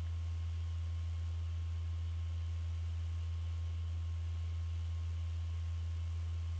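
Steady low electrical hum with a thin faint higher tone above it, unchanging throughout.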